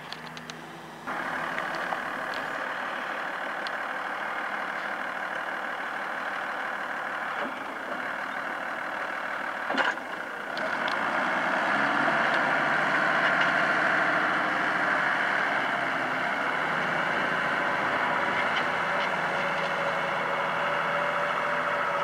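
New Holland 8560 tractor's diesel engine pulling steadily under load as it ploughs with a mounted reversible plough, louder and closer from about halfway through. A short sharp click about ten seconds in.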